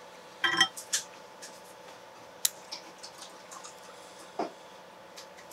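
Fly-tying scissors snipping a mallard flank feather down to size: a few scattered sharp clicks and snips, the loudest about half a second in.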